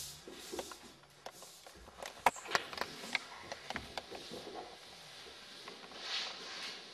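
Bare feet and bodies knocking, slapping and sliding on a wooden floor as two dancers lift, land and roll, with a quick run of sharp knocks about two to three seconds in and a softer brushing slide near the end.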